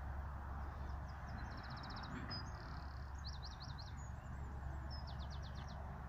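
A small songbird singing three short, high, rapid trills of repeated notes, over a steady low background rumble.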